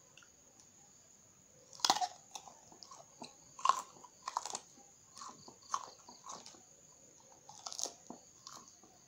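Raw green round eggplant bitten and chewed close to the microphone: crisp crunching bites, the loudest about two seconds and four seconds in, with smaller chewing crunches between and another bite near the end.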